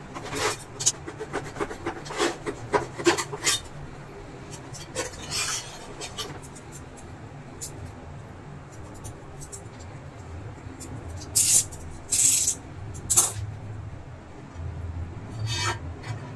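A screwdriver blade scraping and prying along the edge of a Prestige induction cooktop's glass top to work it free of its plastic frame: a quick run of clicks and short scrapes at first, then fewer, louder scraping strokes.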